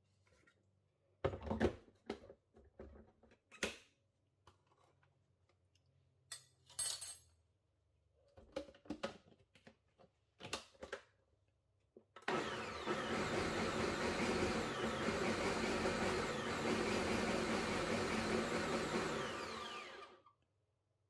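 Knocks and clicks of a plastic blender pitcher and lid being handled and set on a Ninja countertop blender base. Then the blender runs steadily for about eight seconds, pureeing tomatillos, onion and chilies for salsa verde, and cuts off.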